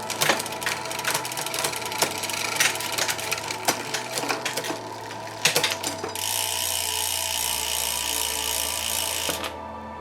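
Ratchet mechanism clicking in irregular runs, then a steady high-pitched ratcheting buzz for about three seconds that cuts off suddenly.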